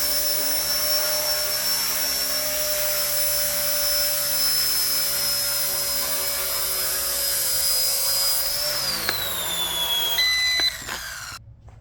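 Small electric RC helicopter (RC ERA 1/48 Huey) hovering with a steady high motor and rotor whine, then spooling down with a falling pitch near the end as the throttle is cut, and going quiet.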